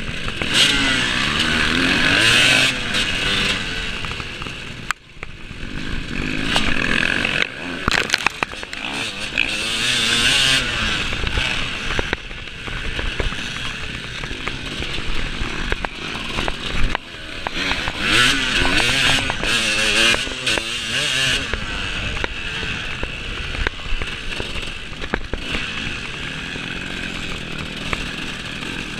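Off-road racing motorcycle engine revving hard and easing off again and again as it is ridden, with a sharp drop in level about five seconds in.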